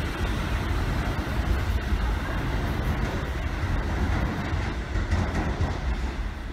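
New York City subway train pulling away along the station track, its wheels rumbling on the rails and fading gradually as it recedes.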